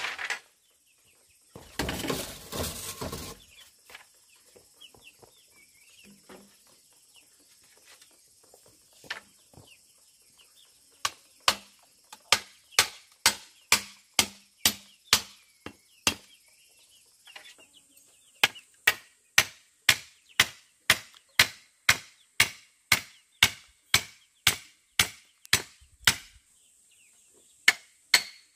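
Steady rhythmic strikes of a hand tool, about two a second, coming in runs from about 11 seconds in. Earlier, just after two seconds in, a chicken or rooster call lasts about a second and a half. A steady high-pitched hiss sits underneath throughout.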